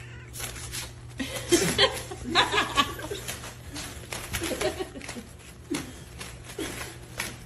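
A person laughing in bursts, loudest about a second and a half to three seconds in, with scattered short clicks and taps throughout.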